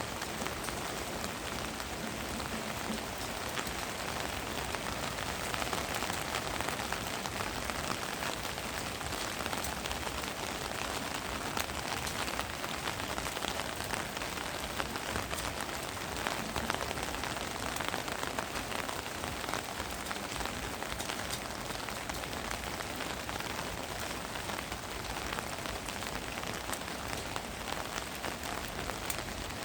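Steady winter rain falling on a surface, a dense even patter of drops.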